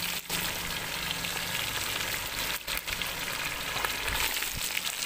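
Fish frying in hot oil in a large aluminium karahi, a steady sizzle.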